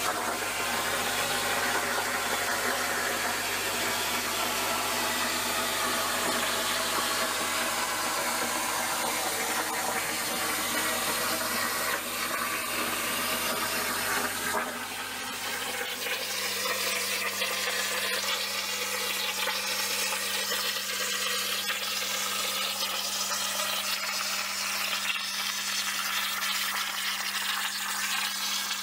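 Plasma cutter torch on a CNC plasma table cutting sixteenth-inch sheet metal: a steady, loud hiss of the arc and air stream. About halfway through, the low hum underneath drops out and a steady low tone takes its place.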